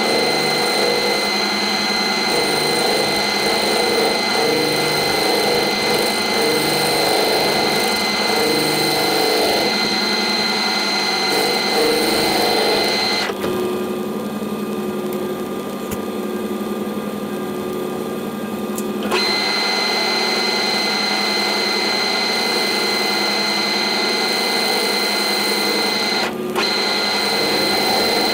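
Metal lathe turning a welded exhaust merge collector in its chuck, the cutting tool shaving down its end: a steady machine whine with a high, even tone. The spindle stops for about six seconds around the middle, then starts again.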